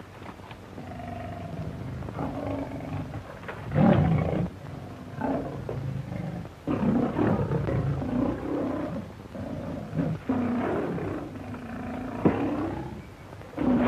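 Tiger roaring and snarling repeatedly, several separate roars with short pauses between, the loudest about four seconds in.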